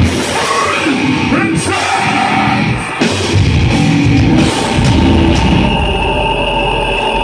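Live metal band playing loud: distorted electric guitars, bass and drums with a vocalist.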